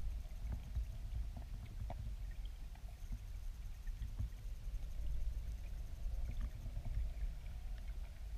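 Low, steady rumble of river water flowing past a camera on the riverbed below a small weir, heard underwater, with faint scattered clicks throughout.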